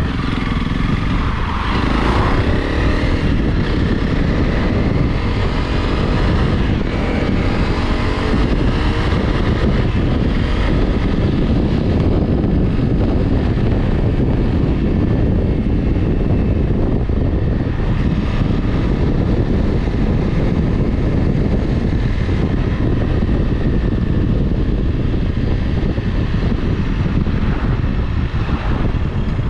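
Honda CRF Rally motorcycle's single-cylinder engine running steadily under way, with changes in engine pitch near the start.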